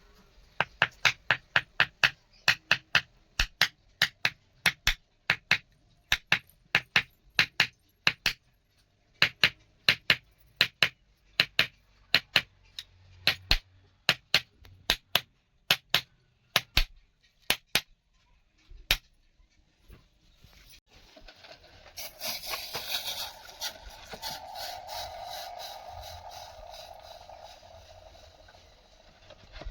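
Hammer blows on steel, struck in a steady rhythm of about two a second for roughly nineteen seconds, as a small steel rod is forged into a knife. After a short pause, a sustained scraping, rasping sound of metal being worked runs for about seven seconds.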